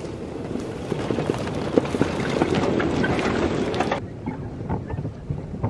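Golf cart driving over a rough dirt-and-grass trail, its body rattling and knocking over the bumps. The sound builds over the first few seconds, then drops abruptly about four seconds in.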